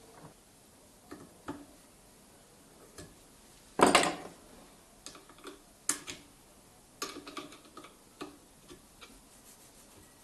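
Scattered metallic clicks and knocks of a hand tool and small steel parts being handled on the bandsaw's blade-guide bearing block in a bench vise, with a louder clatter about four seconds in.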